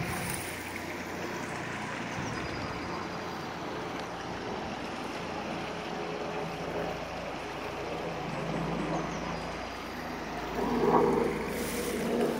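Small woodland stream trickling steadily over stones, with a brief louder sound near the end.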